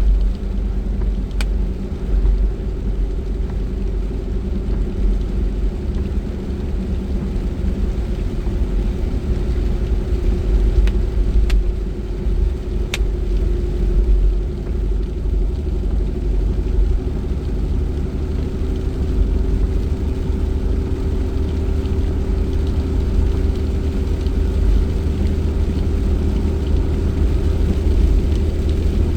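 Car driving, heard from inside the cabin: a steady low rumble of engine and road noise with a steady hum, and a few faint clicks.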